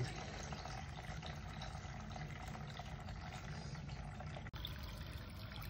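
Steady stream of liquid pouring from a hose into a plastic bowl, forced out of a sealed carbon-fibre go-kart fuel tank by about 6 PSI of air pressure, which is emptying the tank.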